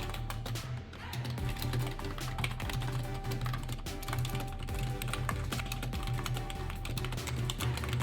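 Fast, continuous typing on an NPET K10 membrane gaming keyboard, a dense patter of key presses, with background music playing under it.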